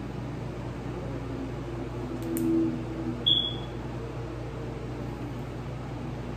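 Steady low room hum and hiss, with a faint murmured voice about two seconds in and a brief high tone a little after three seconds.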